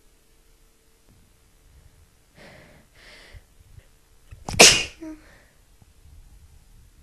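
A person's sneeze: two quick breathy inhales, then one loud, sharp sneeze about four and a half seconds in, ending in a short voiced tail.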